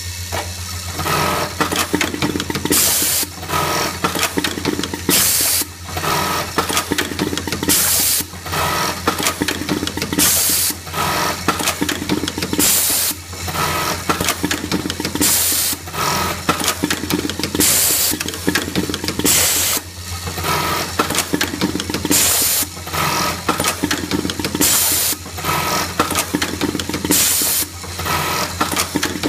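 Automatic button-sewing machine with a Rambo RM-101 pneumatic button feeder running through its cycle: a short burst of rapid stitching, then a sharp hiss of released air, repeating about every two and a half seconds over a steady hum.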